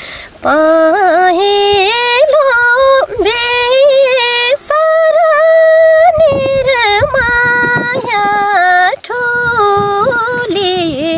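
A woman singing a Nepali folk song unaccompanied, holding long notes joined by quick wavering turns, with short breaths between phrases.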